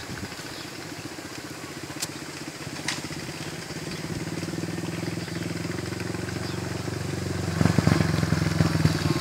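A motorcycle engine running at a steady low speed as the bike approaches, growing steadily louder and loudest over the last second or so as it comes close.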